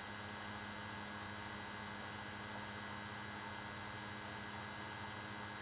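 Steady low hum with a faint hiss underneath: quiet room tone, with nothing else happening.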